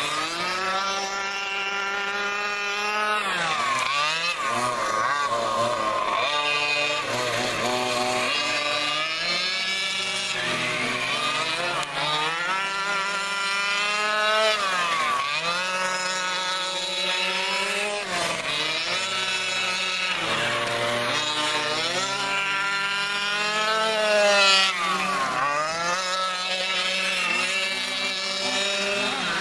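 Radio-controlled trucks running laps on a dirt oval, their motors' buzzing pitch rising on the straights and dropping every few seconds as they slow for the corners.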